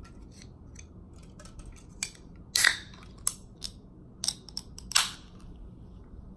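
Aluminium soda can being opened by hand: fingers pick and click at the pull tab in a run of small clicks, with two louder cracks, the second near the end followed by a short fizz as the can opens.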